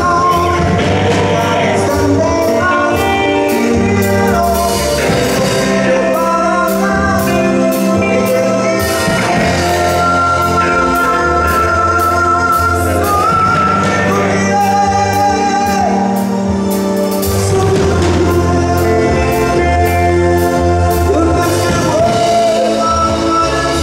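Live rock band playing through a PA: a male singer holding long, wavering notes over electric guitars, keyboard, bass notes and drums keeping a steady cymbal beat.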